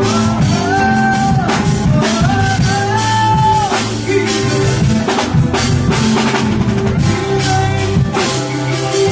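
Band music: a drum kit keeping a steady beat with keyboards playing over held bass notes.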